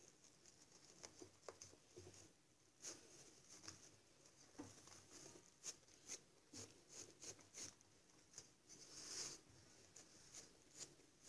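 Faint rustling and crackling of thin warqa pastry sheets as fingers tuck them down around the edge of a pie in a round metal pan, many short scratchy rustles, one after another.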